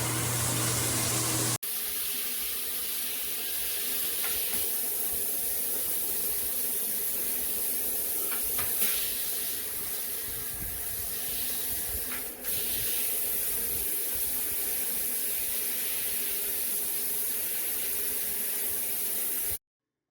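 Water spraying from a handheld shower head, a steady hiss, with a sharp break about a second and a half in; it stops abruptly near the end.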